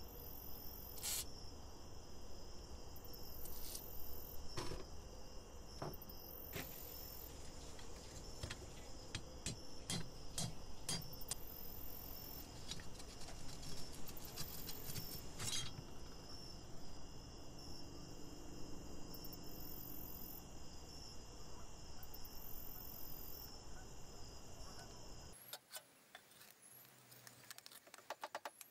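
Scattered metallic clinks and knocks from handling and taking apart the rusty steel parts of an antique hand food press, over a steady high-pitched background drone. Near the end the background thins and a run of quick clicks follows as pliers work the press's perforated strainer cup.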